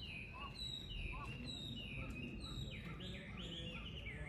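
Cheetah chirping: a run of short, high, bird-like calls, each dropping in pitch, repeated every second or so and coming faster toward the end, over a steady low background rumble.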